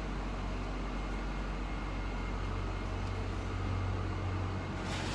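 Steady low hum of an idling truck engine.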